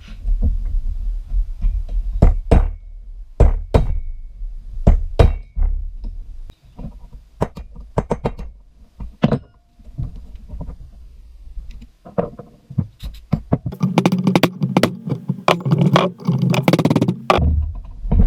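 Irregular sharp metallic clicks and knocks of hand tools working at a driveshaft universal joint's retaining rings, coming thicker and faster near the end.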